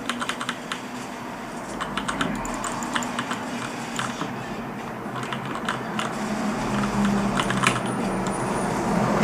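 Cherry G80-3850 mechanical keyboard with Cherry MX Brown switches, keys pressed in short irregular bursts of clacks with pauses between. The sound is fairly quiet for a mechanical keyboard, since the tactile brown switches have no click.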